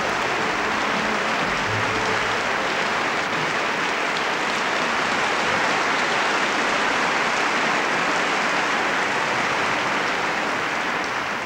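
A large concert audience applauding in dense, even clapping.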